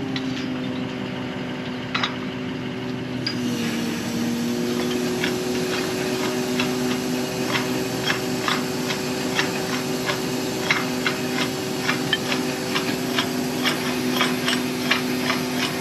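A motor runs steadily, its pitch dropping slightly about three and a half seconds in, under a stream of light metallic clicks and ticks as well drop pipe is hoisted out of a windmill well.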